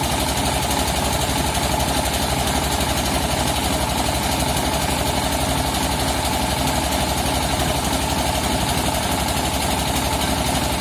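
The engine of a portable rice milling machine running steadily, with a fast, even low pulse.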